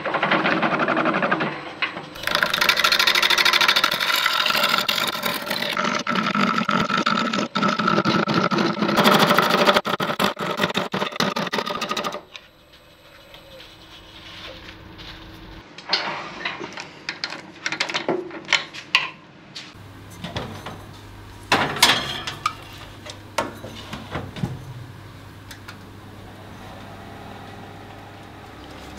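Turning gouge cutting a spinning applewood blank on a wood lathe: a loud, rough, hissing cut for about twelve seconds. Then the cutting stops and the lathe runs much more quietly, with scattered light knocks and taps.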